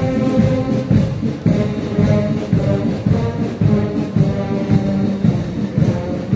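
Brass band playing a march, with a steady beat of about two strokes a second from drum and cymbals under the brass.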